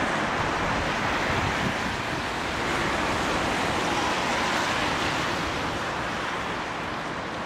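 Wind buffeting the microphone over a steady rushing noise.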